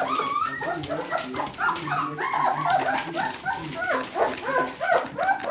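A litter of three-week-old puppies whining and yipping, many short high calls rising and falling and overlapping one another without a break.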